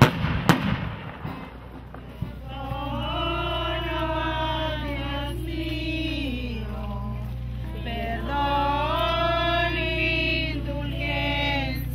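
Two sharp bangs of firecrackers in the first second, then a crowd of people singing a hymn together in long, drawn-out phrases.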